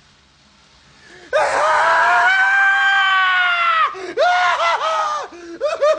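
A person screaming in fright. One long, high-pitched scream starts about a second in and is held for more than two seconds, then a run of short screams follows.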